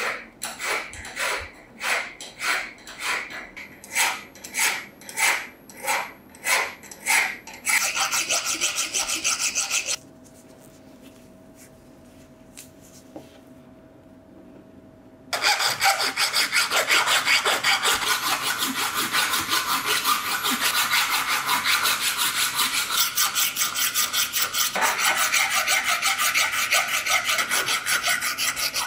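The steel jaw of an old pincer is scraped back and forth across a flat hand file, its edge being filed flat and bright. It starts with separate rasping strokes about one and a half a second, then quicker ones, then a pause of about five seconds. Fast, continuous filing follows from about fifteen seconds in.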